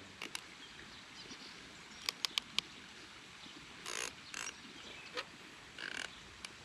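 Sharp clicks of a plastic lawn sprinkler head being handled and adjusted: a couple at the start, then four in quick succession about two seconds in, followed by a few short scrapes and rustles.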